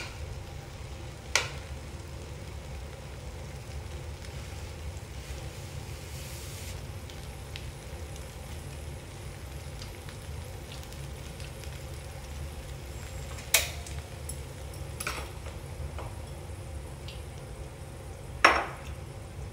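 Kimchi and pork belly sizzling quietly in a non-stick wok over a steady low rumble. A few sharp taps of metal chopsticks on the pan stand out, two near the start and three in the last third.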